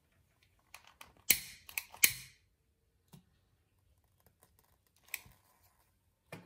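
Trigger clicks of a long-nosed utility lighter being sparked: a quick run of clicks with two loud snaps about a second and a half in, then a few fainter single clicks near the end.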